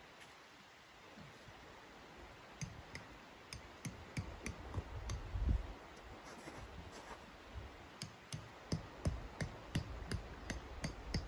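Irregular sharp clicks and knocks, a few a second and thickest toward the end, from a tent stake being driven in with a hand tool, with a heavier thud about five and a half seconds in.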